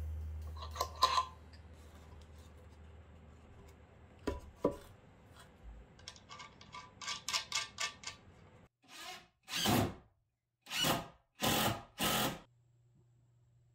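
Handling clicks and knocks on wooden boards, then a cordless drill running into the wooden frame in about five short bursts, each about half a second, in the second half.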